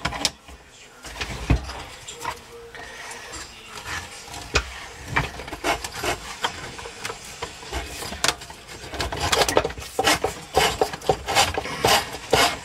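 Drain snake cable scraping and clicking against the drain pipe and fitting as it is fed down a clogged kitchen sink drain, in irregular rasps that get busier near the end.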